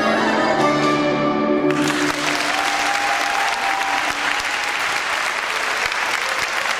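A band of button accordion, flute and guitar holds a closing chord that ends about two seconds in, and the audience breaks into steady applause.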